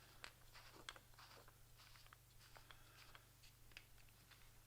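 Faint scattered clicks and light taps from handling the small metal parts of an opened 90-degree drill attachment, its gears and gear bracket, over a low steady hum.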